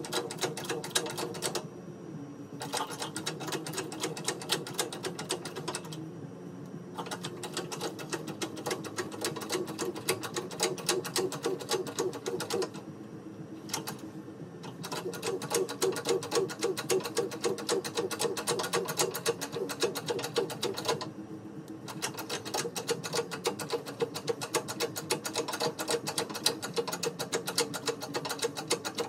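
Rapid mechanical clattering with a fluctuating hum, in runs of several seconds broken by short pauses.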